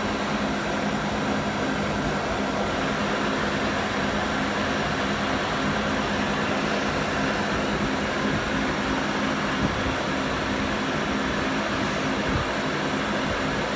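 Haas SL-40 CNC lathe running, a steady whir and hum of its spindle and machinery, with a couple of small knocks near the end.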